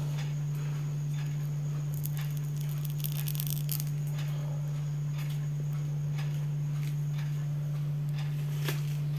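A steady low hum, unchanging throughout, with a few faint scattered clicks over it.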